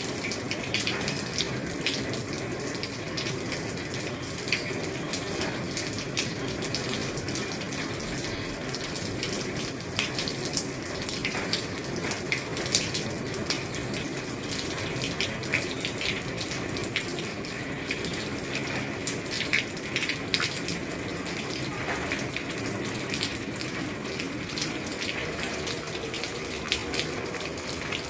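Heavy rain falling steadily on an old roof: a dense, even hiss with many separate drops tapping through it.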